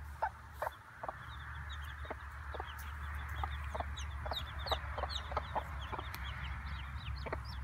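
A mother hen clucking to her newly hatched chicks in short, repeated clucks about every half second, with the chicks peeping in many quick, high, falling chirps from a few seconds in.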